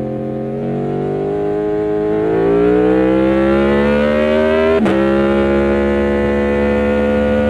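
Aprilia Tuono V4 1100's V4 engine pulling under acceleration, its pitch rising steadily for about four seconds. About five seconds in, a quick upshift drops the pitch sharply, and the engine then runs at a nearly steady speed.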